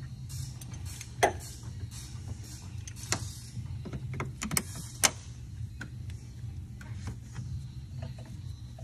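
Scattered clicks and knocks of tools and parts being handled in a truck's engine bay during disassembly, the sharpest about a second in and about five seconds in, over a steady low hum.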